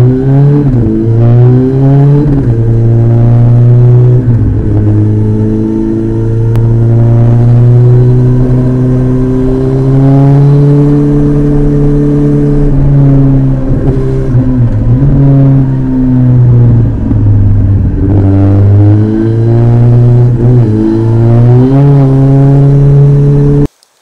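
Kawasaki ZX-14R's inline-four engine through an Akrapovic exhaust, ridden at a steady pitch for a while, with the revs rising and falling. Near the end it pulls up through the gears in several rising steps, then the sound cuts off suddenly.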